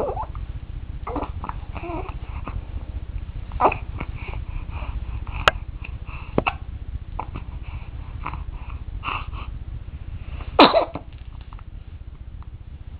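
A one-month-old baby hiccuping: several short, sudden hiccups spread out, the loudest about ten and a half seconds in, with soft baby vocal sounds between them.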